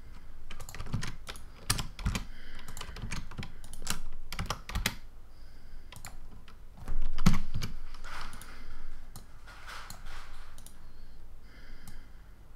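Computer keyboard keys being pressed in short, irregular clicks while working shortcuts, with one louder, deeper knock about seven seconds in.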